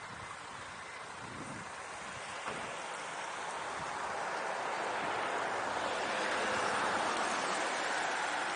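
Flowing stream water, a steady rushing that grows louder about halfway through.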